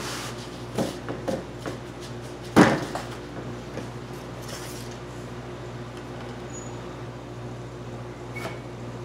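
Objects being handled and set down on a wooden board: a few light knocks, then one louder thump about two and a half seconds in, and a small click near the end, over a steady low hum.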